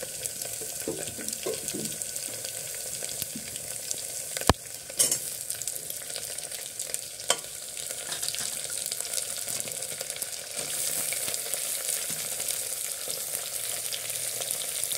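Oil sizzling steadily in an aluminium pressure cooker as potatoes fry and cut eggplant is added. Sharp knocks against the pot come about four and a half, five and seven seconds in. The sizzle grows louder about ten seconds in.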